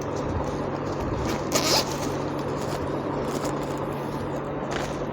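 Keyed chuck of a Skil drill being spun by hand to close its jaws on a step cone bit's shank: a steady metallic rasping with a few clicks, over a low steady hum.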